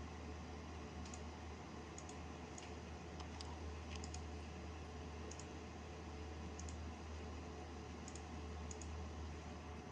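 Computer mouse buttons clicking about a dozen times, often in quick pairs, as windows are closed and opened on a Windows 98 PC. Under the clicks is the steady low hum and hiss of the running computer.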